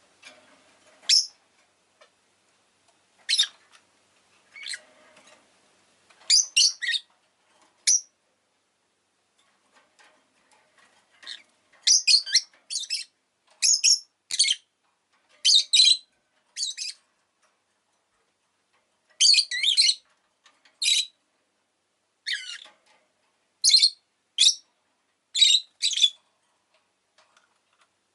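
Rosy-faced lovebird (Agapornis roseicollis) giving sharp, high-pitched chirps and squawks in short bursts with pauses between, coming thicker in the second half.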